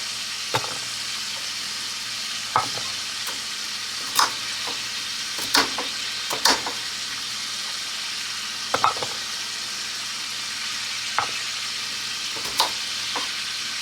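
Chicken breasts frying in a cast iron pan, a steady sizzle with sharp clicks or knocks every second or two.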